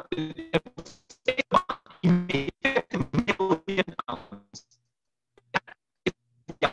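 Speech over a Zoom call, choppy and breaking up, that cuts out to near silence about four and a half seconds in, with a couple of short clicks near the end.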